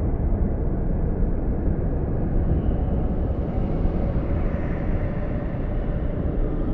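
Storm sound effect: a steady, dense low rumble with hardly any high hiss and no distinct claps or strikes.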